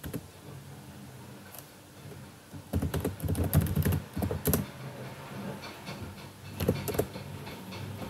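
Typing on a computer keyboard: a quick run of keystrokes about three seconds in and a few more near seven seconds, over a faint low hum.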